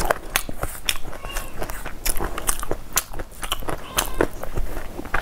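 Close-up eating sounds: chewing and wet mouth clicks, with fingers squishing and mixing rice and curry against a banana leaf. It is a dense run of short, sharp clicks and smacks.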